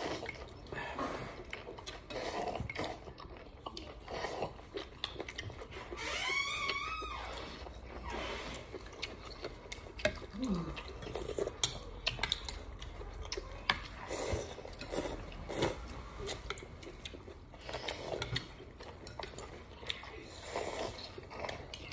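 Someone eating noodle soup: a metal spoon and chopsticks clink and scrape in a ceramic bowl in short scattered clicks, with chewing between.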